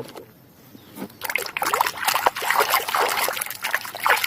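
Water running and splashing over a muddy animal toy as it is washed. The water starts about a second in, after a couple of light knocks.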